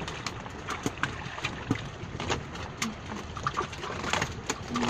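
Water lapping against a small wooden outrigger boat, with scattered light knocks and creaks from the bamboo fish trap and the boat's planks, and a short low creak near the end.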